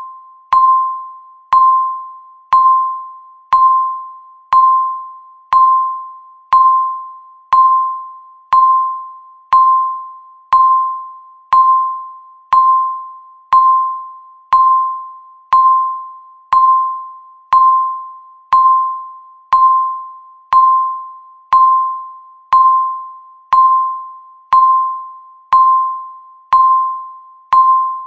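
Countdown timer beep: one mid-pitched, bell-like tone struck once a second, each beep starting sharply and fading away before the next.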